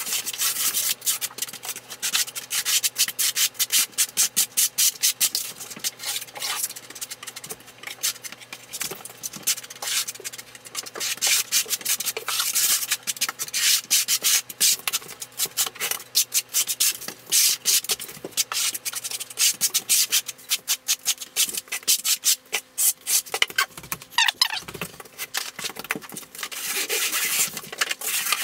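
Steel tile trowel scraping and spreading thinset mortar over the floor in quick, repeated strokes.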